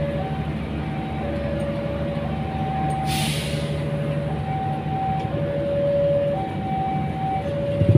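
Passenger train coaches rolling slowly past with a steady low rumble, while a level-crossing warning alarm alternates between two tones about once a second. A short hiss sounds about three seconds in.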